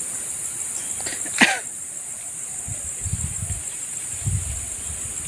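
Steady high-pitched drone of an insect chorus over open paddy fields. One sharp sound comes about a second and a half in, and two low rumbles of wind buffet the microphone in the second half.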